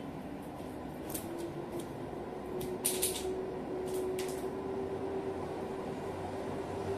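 Light clicks and scuffs of a Belgian Malinois puppy's paws and claws on a wooden floor as it trots about, loudest about three seconds in, over a steady faint hum.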